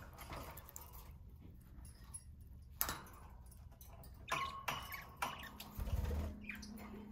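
Pet budgies moving about their cage: scattered clicks and taps, a sharp click near three seconds in, and a few short chirps a little past the middle, with a steady low hum starting about five seconds in.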